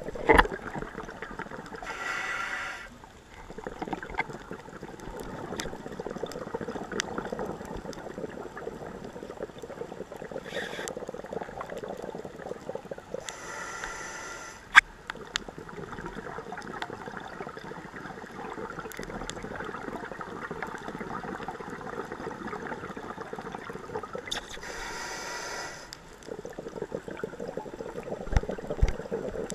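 A scuba diver breathing through a regulator underwater: a hissing breath roughly every eleven seconds, three in all, over a steady underwater noise bed. Scattered sharp clicks run through it, with one loud click a little past halfway.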